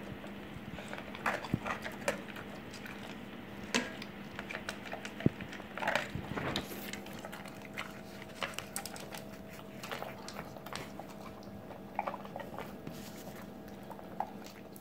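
Wolfdog eating raw deer meat and kibble from a stainless steel bowl: irregular chewing and biting with many sharp clicks, over a steady faint hum.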